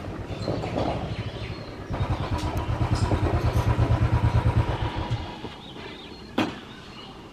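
Motorcycle engine running with an even pulsing beat, louder from about two seconds in, then stopping about five seconds in; a single sharp click follows about a second later.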